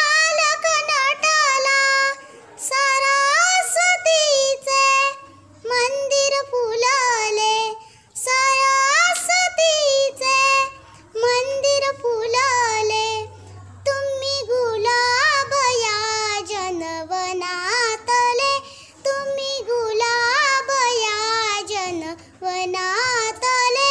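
A child singing a Marathi welcome song (swagat geet) solo in a high voice, in melodic phrases with vibrato and short breaths between them.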